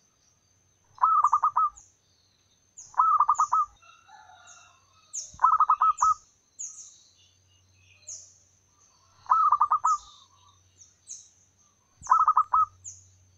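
Zebra dove cooing: five short, rapid staccato trills of five or six notes each, a couple of seconds apart. Thin, high chirps that fall in pitch, from another small bird, repeat throughout.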